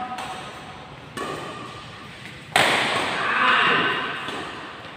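Badminton racket hitting a shuttlecock during a doubles rally, each hit echoing around the hall. There is a lighter hit about a second in and a much harder, louder one about two and a half seconds in.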